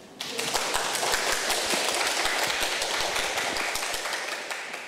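Audience applause: many hands clapping, breaking out suddenly and dying away near the end.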